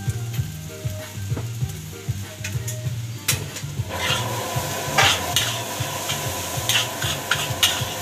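Fried rice being stir-fried in a steel wok: a metal spatula scrapes and knocks against the pan over a hissing sizzle that gets louder about halfway through. Background music with a repeating low bass line runs underneath.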